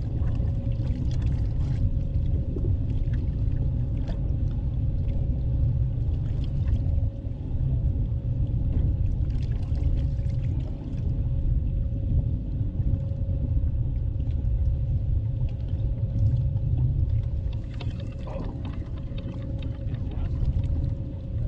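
Wind buffeting the microphone in a steady low rumble, with chop lapping at a bass boat's hull and a faint steady whine throughout.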